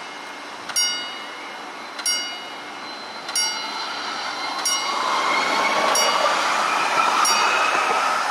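A level-crossing warning bell dings about once every 1.3 seconds while a low-floor electric tram passes over the crossing. From about five seconds in, the tram's running noise grows louder, with a whine that slowly rises in pitch.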